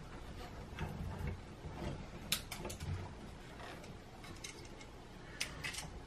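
Faint, scattered clicks and rustles of electrical wires being pushed back into a wall electrical box, with the dimmer switch's body tapping against it.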